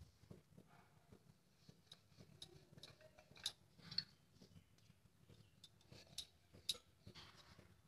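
Faint, scattered clicks and light knocks of a rolling pin against a rolling board as flatbread dough is rolled out thin, over a low steady hum.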